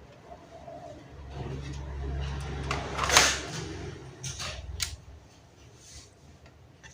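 Laptop parts being handled during disassembly: a low rumbling handling noise, then a sharp click about three seconds in and a few lighter clicks after it.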